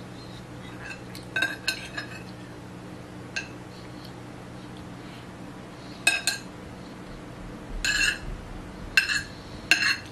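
Metal utensil clinking and scraping against a dinner plate while eating: a few quick clinks about a second and a half in, then single clinks every second or two, with a longer scrape near eight seconds.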